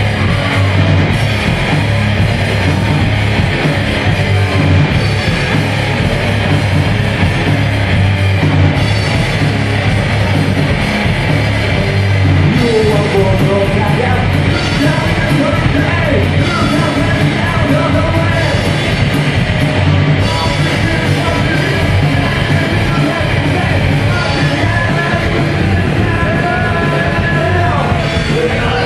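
Live rock band playing: electric guitars, bass guitar and drums, with a singer's vocals over them.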